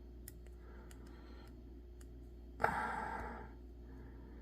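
Faint clicks and ticks of fingernails picking at the protective plastic film on acrylic craft sticks, with one short, louder sound about two and a half seconds in.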